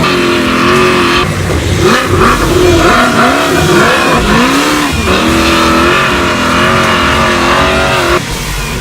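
Off-road race truck engine revving hard, its pitch rising and falling again and again as the throttle is worked. The engine sound drops away abruptly near the end.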